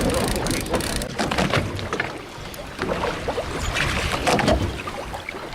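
Deck noise aboard a fishing boat: wind and sea hiss with irregular knocks and clatter.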